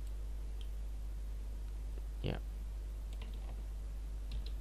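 A few faint clicks of a computer mouse or keys as on-screen text is selected and copied, over a steady low electrical hum. About halfway in there is one brief voiced sound.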